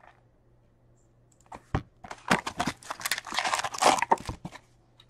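A trading-card box of Upper Deck Artifacts hockey packs being torn open and its foil-wrapped packs pulled out: crinkling and tearing of cardboard and foil with many small clicks. It starts about a second and a half in and stops shortly before the end.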